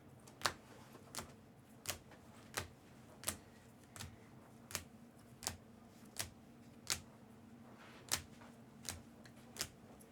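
Sharp ticks repeating at a very even pace, about three every two seconds, over a faint steady hum.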